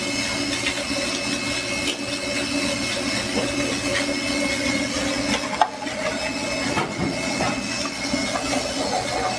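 Restaurant kitchen noise: a steady hiss over the hum of kitchen equipment, with one sharp knock about five and a half seconds in.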